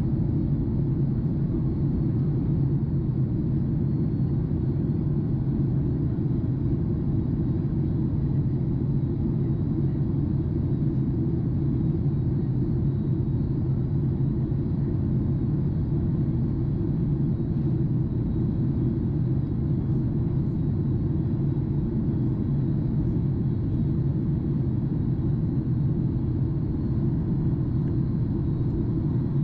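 Boeing 737 MAX 8 cabin noise in flight, heard inside the cabin by a window over the wing: a steady, even low rumble of engines and rushing air, with a faint steady high tone above it.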